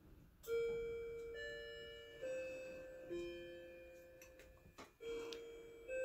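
A chiming clock playing its hour tune: slow, single ringing notes about one a second, each left to ring out, with a short pause in the middle of the phrase.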